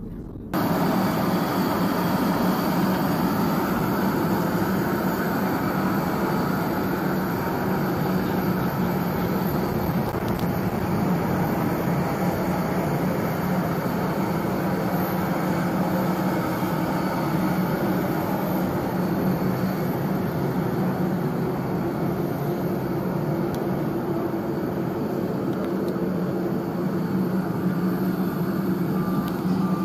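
Steady drone of aircraft noise on an airport apron: a constant, even hum with a held low tone and no changes. It cuts in suddenly about half a second in.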